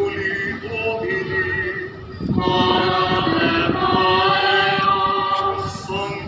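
Choir singing a slow, chant-like processional, the voices swelling louder and fuller a little over two seconds in.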